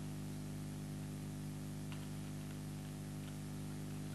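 Steady electrical mains hum with a buzz of many stacked tones, with a few faint keyboard key clicks.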